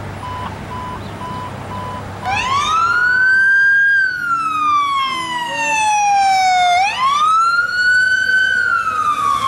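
Electronic siren on a 2016 Chevrolet Tahoe fire chief's vehicle, wailing. It comes in about two seconds in with a quick rise, falls slowly, then rises again and starts falling near the end.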